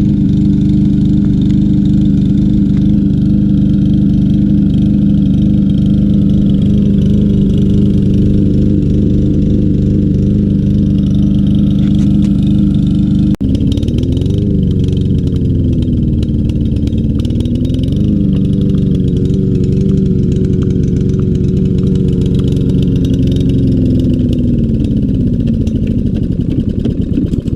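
Briggs & Stratton 625EX 150cc mower engine running steadily, then surging: about halfway through its speed sags and picks up again, and near the end it slows and dies. The engine is running poorly and stalling, which the owner puts down to a carburetor clogged by old gas.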